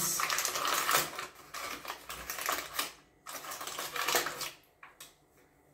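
Cardboard box of Maizena cornflour being handled, opened and tipped to pour: several irregular bursts of crinkling and rustling of cardboard and paper, dying away about four and a half seconds in.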